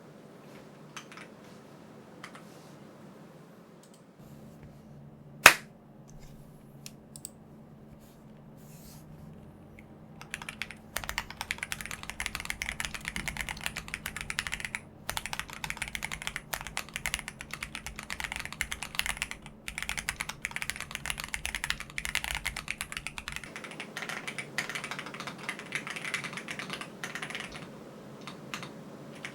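Fast continuous typing on a Tiger80 Lite TKL keyboard with stock Gateron CJ linear switches, a PC plate, plate and case foam, tape mod and DCX ABS keycaps. The typing starts about ten seconds in. Before it come a few isolated key clicks and one loud sharp click about five seconds in. In the last few seconds it is picked up by the camera's built-in microphone instead of a condenser mic.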